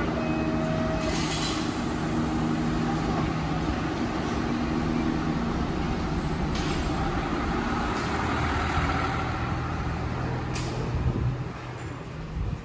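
Route bus's diesel engine running steadily, with three sudden hisses of compressed air from its pneumatic door and air brakes. The engine sound falls away near the end.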